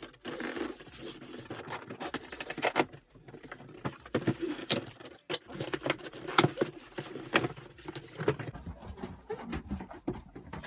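A cardboard shipping box being opened by hand: packing tape torn along the seam, with cardboard and packaging rustling and scraping and irregular sharp knocks as things are handled.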